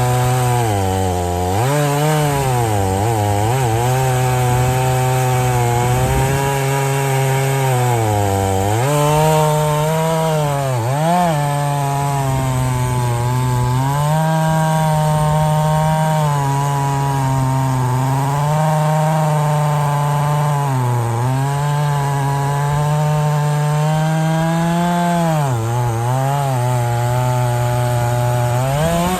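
Gas chainsaw bucking firewood logs at high revs, its pitch sagging each time the chain bites into the wood under load and climbing back as it frees up, several times over.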